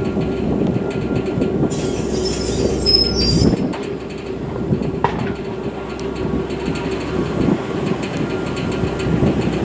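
E7-series shinkansen car being towed slowly along depot track by a rail-car mover, with a steady rolling rumble and machine hum. A high-pitched wheel squeal comes in about two seconds in and lasts a second or so, and a single sharp click follows about five seconds in.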